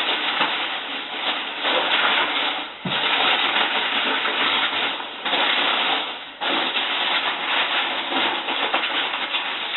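Packaging being rustled and crinkled by hand during unwrapping, a continuous noisy rustle in long stretches broken by a few brief pauses.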